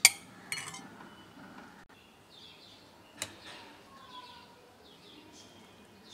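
Metal spoon clinking against a bowl of dal: a sharp clink at the start, another about half a second later, and one more about three seconds in. Birds chirp faintly in the background.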